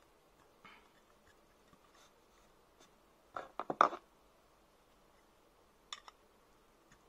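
Small metal parts being handled: faint scuffs, then a quick cluster of sharp clicks and scrapes a little past three seconds in, and two light clicks near six seconds, as the square aluminium tubes and a small pair of pliers are worked.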